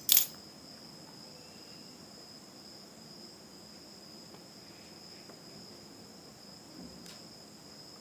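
A steady, high-pitched whine in the background, with one sharp click just after the start; otherwise quiet.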